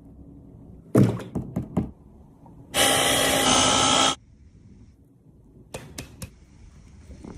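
Kitchen utensils knocking and clicking, and a small electric kitchen appliance motor that runs steadily for about a second and a half, then cuts off.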